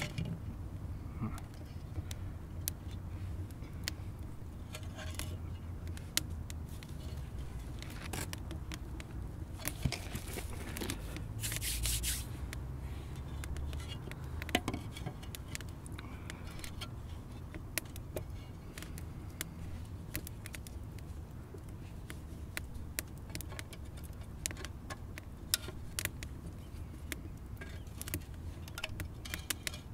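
Wood fire crackling in an adobe rocket stove, with scraping and knocking as a stuffed squash is worked into the fire opening on a stone slab. Scattered sharp clicks run over a low steady rumble, with a burst of scraping about twelve seconds in.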